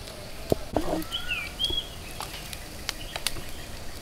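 Sharp clicks and knocks of tongs and lemongrass-skewered fish being set on a wire grill over charcoal, with a short clatter just under a second in. A bird calls a few short gliding whistled notes about a second in.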